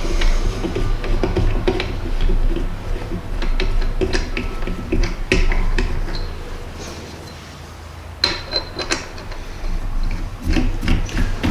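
Metal belt-grinder parts being handled on a workbench: scattered clicks, knocks and clatter over a low rumble, easing off for a moment past the middle, then another cluster of knocks with a brief squeak.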